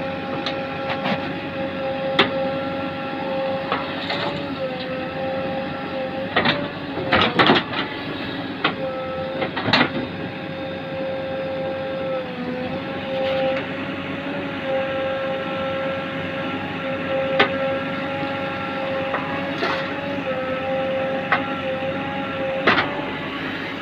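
JCB backhoe loader's diesel engine running under load with a steady high whine, broken by sharp clanks and knocks every few seconds, heaviest in a cluster around seven seconds in.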